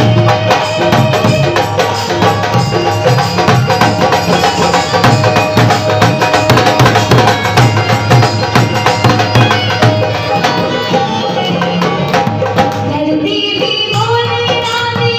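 Instrumental passage of a Hindi devotional bhajan: steady tabla-style hand drumming under a sustained melody, with a melody line that bends in pitch coming in near the end.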